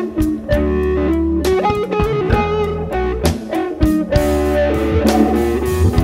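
Background music: an electric-guitar blues piece with a steady bass line and drum beat.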